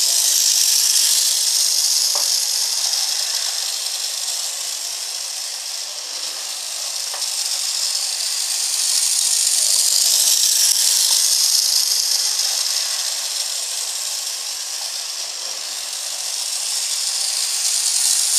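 Bachmann model trolley running on its track under power: a steady high-pitched whirring rattle from its small electric motor and wheels. It swells twice as the tram passes close and fades as it goes round the far side of the loop.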